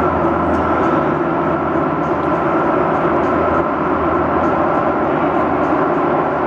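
Lisbon Metro ML99 train approaching through the tunnel into the station: a steady rumble of wheels on rails with a steady high whine over it.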